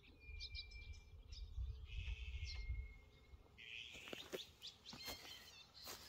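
Small birds chirping and twittering, with a low rumble during the first three seconds and a few short rustling clicks in the second half.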